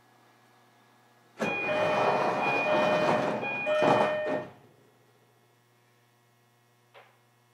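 Sliding doors of a JR Kyushu 305 series electric train closing at a station stop: a sudden rush of noise about three seconds long with repeated beeping chime tones, followed by a single small click near the end.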